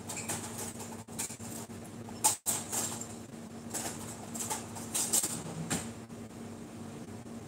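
Light clatter and rustling of kitchen items being handled at a counter, with a sharp clack a little over two seconds in, over a steady low hum.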